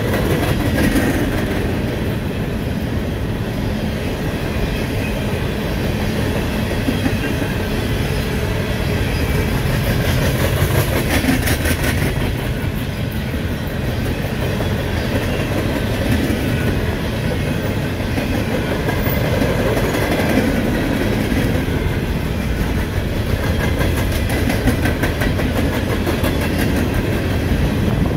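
A long string of empty open-top coal cars rolling past at speed. Their wheels make a steady rumble on the rail, with clickety-clack over the rail joints.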